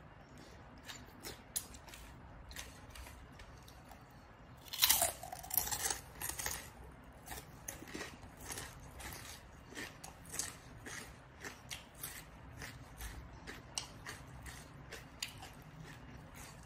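Crunchy biting and chewing of green papaya salad and raw vegetables. A loud crunching bite comes about five seconds in, followed by steady crunching chews, roughly one or two a second.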